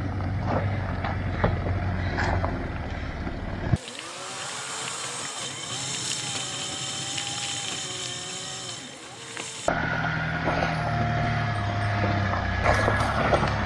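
Land Rover Discovery 3's TDV6 diesel engine running at crawling speed, with stones crunching and popping under the tyres on a loose gravel mountain track. In the middle the sound cuts to a thinner in-car recording with a slow rising and falling whine, then cuts back to the engine rumble and gravel.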